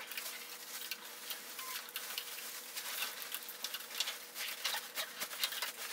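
Labradorite palm stones clicking and clacking against each other on a table as they are slid about and counted, in quick irregular taps, with plastic packaging crinkling alongside.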